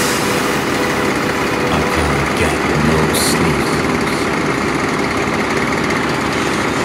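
Chainsaw engine idling steadily.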